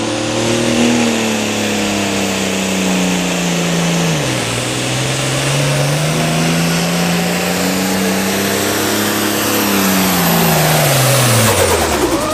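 A turbocharged diesel engine in an International Pro Farm pulling tractor runs hard under the load of the sled, with a high turbo whine over it. The engine note sags about four seconds in, climbs again, then falls away near the end.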